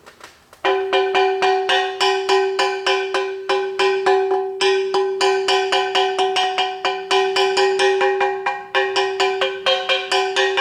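Welded cast iron dozer final drive casting struck rapidly and repeatedly, about four strikes a second starting under a second in, each strike leaving a clear bell-like ring. It is a ring test for cracks: the clean, sustained ring is the sign of a sound casting with no crack.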